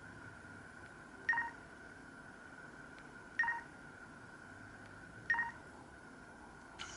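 Three short electronic beeps from an LG KP500 mobile phone's speaker, about two seconds apart, each a brief two-pitch tone. A faint steady high hum runs underneath.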